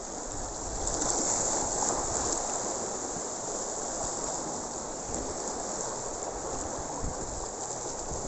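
Steady rushing water noise, a little stronger about a second in.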